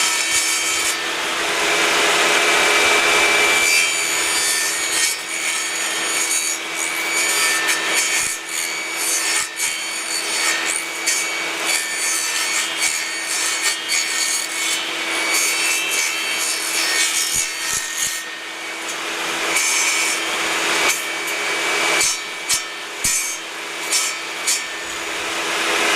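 Power saw running steadily and cutting into wood, cutting an entrance opening in a wooden beehive bottom board. A few short knocks come near the end.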